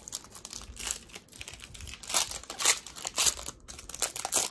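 Foil wrapper of a Pokémon card booster pack crinkling in irregular crackles as it is handled and opened. The loudest crinkles come a little past halfway.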